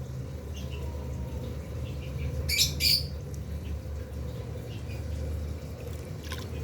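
Birds calling: two sharp, loud calls close together about two and a half seconds in, with faint scattered chirps, over a steady low rumble.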